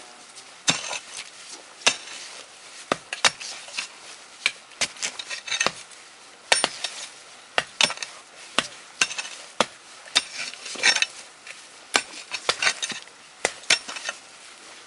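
Metal head of a long-handled trail tool striking and scraping into rocky, gravelly soil: a sharp clink about once or twice a second, with gritty scraping between strikes.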